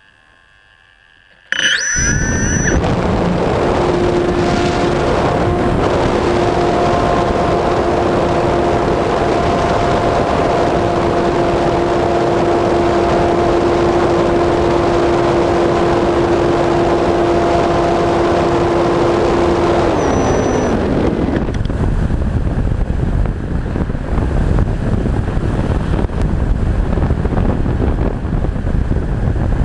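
Reichard Blizzard model glider's motor starting suddenly and running at a steady pitch under heavy airflow rush on the onboard camera. About 20 s in the motor winds down and stops, leaving only wind rush as the glider glides.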